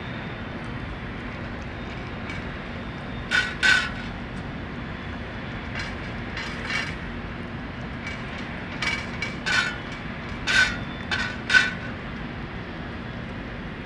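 A cat eating from a shallow metal dish, which gives about a dozen short clinks with a brief ring in irregular clusters. Under them runs a steady background hum.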